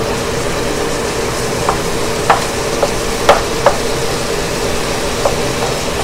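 Chicken and cabbage sizzling in a nonstick wok while a wooden spatula scrapes and pushes them through the pan, with about half a dozen sharp knocks of the spatula against the pan in the middle of the stretch. A steady low hum runs underneath.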